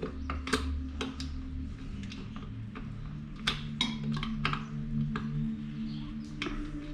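Background music of held low tones that shift every couple of seconds, with sharp irregular clicks and taps of hand work on a small engine, the loudest about half a second and three and a half seconds in.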